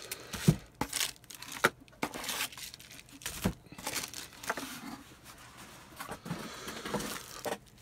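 Clear plastic bags of resin model-kit parts crinkling and rustling as they are handled and set down on a table, with scattered short knocks and taps.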